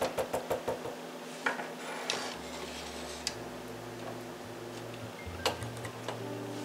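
A spoon stirring a liquid gravy mixture and clinking against the side of its bowl: a quick run of taps in the first second, then a few scattered clinks.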